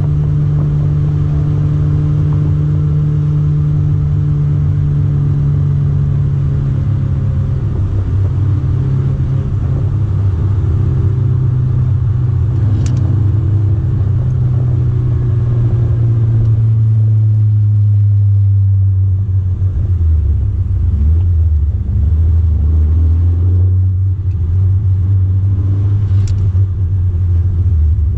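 Toyota 4A-GE silvertop 20-valve four-cylinder with individual throttle bodies, heard from inside the MR2's cabin, running steadily under way. Its note drops slowly in pitch and settles lower for the last third as the car slows.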